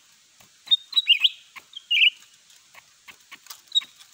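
A trapped cucak ijo (greater green leafbird) calls from inside a small wire trap cage with short, sharp chirps: a cluster about a second in, another at two seconds and one near the end. Light clicks from the cage being handled fall between the chirps.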